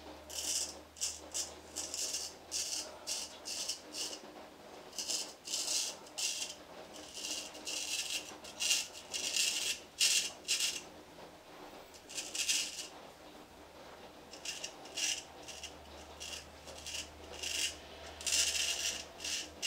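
Dovo Black Star 5/8 straight razor scraping through lathered beard stubble in many short strokes, coming in quick runs with brief pauses, on the first pass with the grain.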